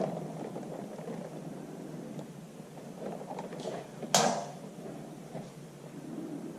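Low rustling of movement, then a single sharp crack about four seconds in that rings briefly.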